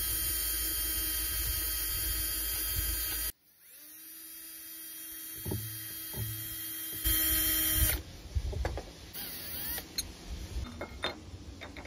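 Cordless drill spinning a bushing on a threaded rod while a flat file is held against it, a makeshift lathe filing the bushing down to size. The drill runs with a steady whine and hiss, stops abruptly about three seconds in, then starts again and runs until about eight seconds in. A few clicks follow as the drill and work are handled.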